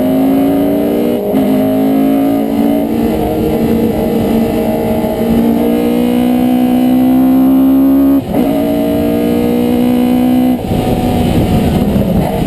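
Naturally aspirated Cosworth YB four-cylinder on carburettors, recorded onboard a race car, pulling hard through the gears. Its pitch climbs steadily and drops sharply at upshifts about a second in and again about eight seconds in. Near the end the throttle closes and the note breaks up into a rough, crackling overrun.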